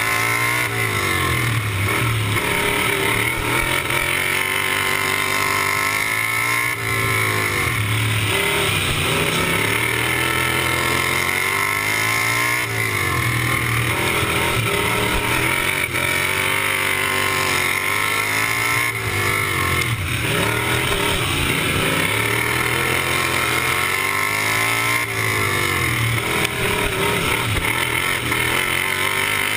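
Racing lawn mower engine heard from on board, revving up and dropping back again and again in pitch, about every six seconds, as the mower laps a dirt oval.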